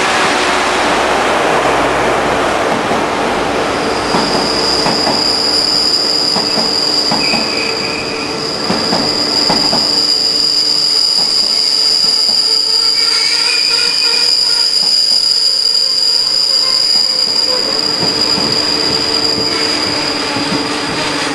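Twilight Express 24-series sleeper coaches rolling past along the platform as the train slows to a stop, wheels clicking over rail joints. About four seconds in a high steady brake squeal sets in and holds.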